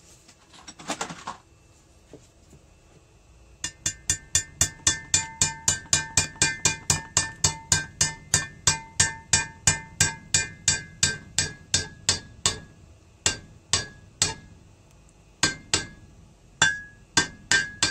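Hammer driving a bearing into an aluminium engine crankcase through a driver: a fast run of sharp, ringing metal blows, about three or four a second, beginning about four seconds in, then slower, spaced blows towards the end.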